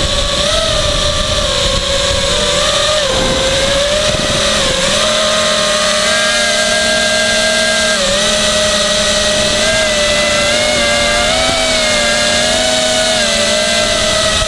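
Blade Conspiracy 220 quadcopter's motors and propellers whining, heard from its onboard camera, the pitch wavering up and down with throttle changes.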